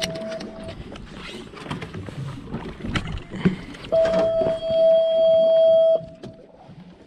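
Small electric motor on the boat whining at one steady pitch. It stops within the first second and runs again for about two seconds from about four seconds in. Light knocks and clatter sound between the runs.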